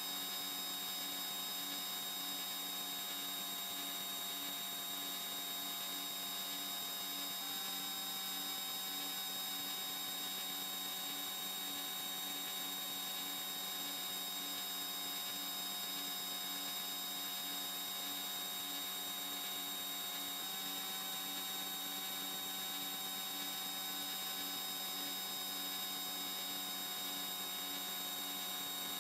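Steady electrical hum with several thin, high whining tones over a faint hiss and a faint, evenly pulsing low tone; some of the tones step slightly in pitch about seven and twenty seconds in.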